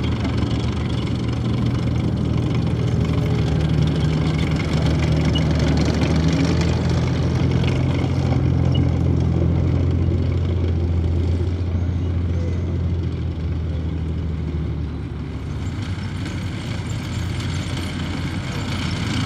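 Diesel engine of a BMP-1 tracked infantry fighting vehicle running under way with a steady deep drone. About three-quarters of the way through, the engine sound changes to another tracked carrier's engine.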